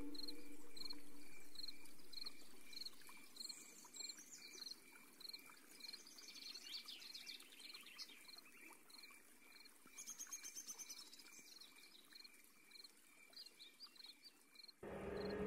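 Faint outdoor nature ambience: an even chirping repeats about twice a second throughout, with brief bird calls about six and ten seconds in. The tail of the earlier music fades out in the first couple of seconds, and loud music comes in abruptly near the end.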